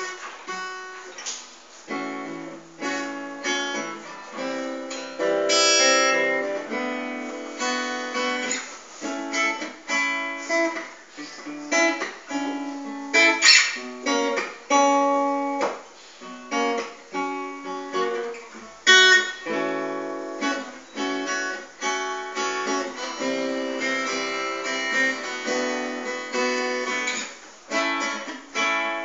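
Solo acoustic guitar playing: chords and single notes struck in a steady rhythm, with one sharp click about halfway through.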